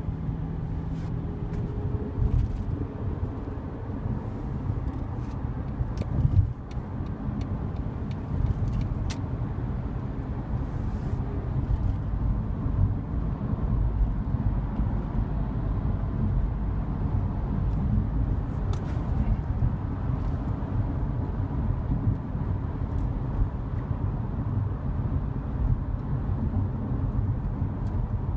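Steady low rumble of a car driving, heard from inside the cabin, with a few sharp clicks and a brief knock about six seconds in.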